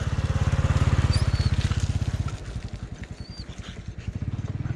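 A small engine running with a fast, even putter. It is loudest for the first two seconds, eases off, then picks up again near the end.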